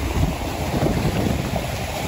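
Wind buffeting the microphone: a low, irregular rumble.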